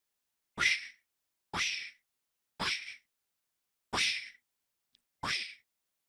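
Cartoon whoosh sound effect repeated five times, about once a second, each a short swish with silence between.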